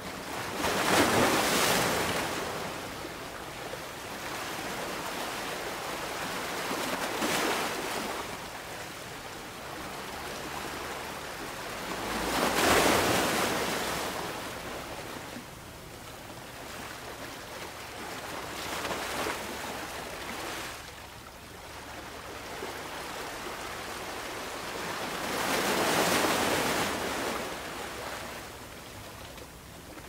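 Ocean waves breaking on a beach: five surges of surf roughly every six seconds, the loudest about a second in, near the middle and near the end, with a steady wash of water between them.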